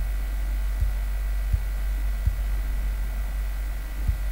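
Steady low electrical hum with a thin, faint high tone above it, broken by a few soft, short low thumps spaced unevenly.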